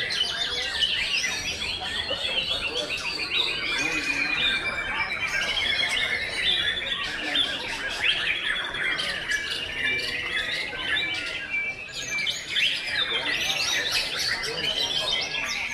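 Many caged white-rumped shamas singing at once: a dense, overlapping tangle of loud, varied whistles, chirps and rapid trills that never pauses.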